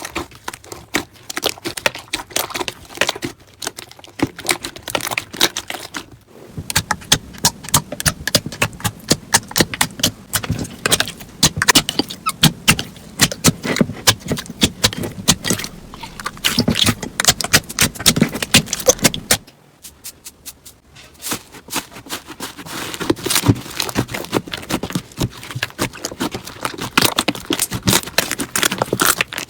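Crunchy slime being squeezed and pressed by hand: a dense run of crackling, popping clicks, broken by short pauses about six seconds in and near twenty seconds.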